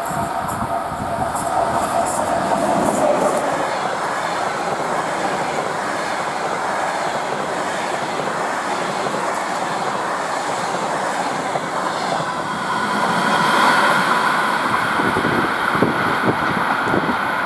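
Passenger train hauled by a ChS4 electric locomotive passing close by at speed, with a steady rumble and clatter of wheels on the rails. A higher-pitched whine grows louder about thirteen seconds in as the coaches run past, and a few sharp wheel clicks come near the end.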